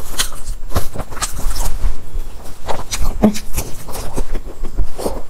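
Close-miked eating: chewing and handling of flaky Chinese pastries, a dense, irregular run of small crackles and clicks.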